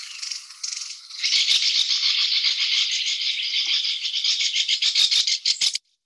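Great spotted woodpecker giving its chattering call: a rapid run of sharp notes that gets louder about a second in and cuts off shortly before the end.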